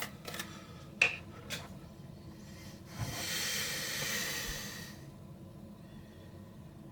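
A few light clicks, then a long sniff through the nose lasting about two seconds, someone smelling a tin of beard balm.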